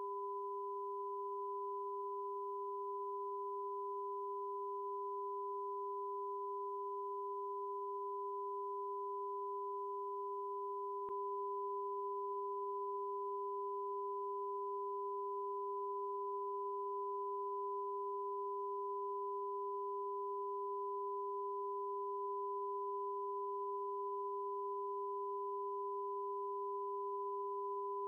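Broadcast test-signal tone under a TV test card: two steady pitches sounding together, the lower one louder, held without change. A faint click comes about eleven seconds in.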